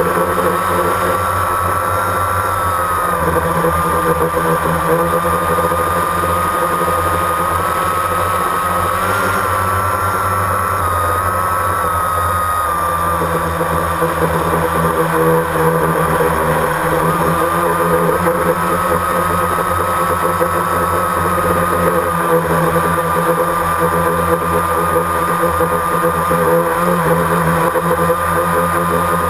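Multirotor drone's electric motors and propellers, recorded on board: a steady loud whine and buzz whose pitch wavers slightly up and down as the drone hovers and drifts.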